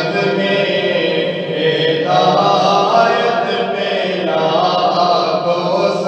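Naat sung by a male voice without instruments, a melodic line over a steady low humming vocal drone.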